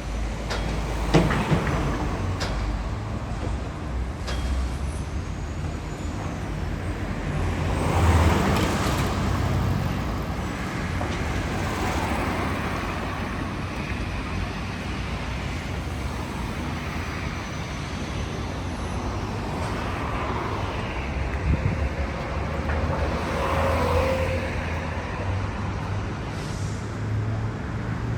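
Road traffic: motor vehicles running and passing, with a steady low engine rumble and a louder vehicle passing about a third of the way in.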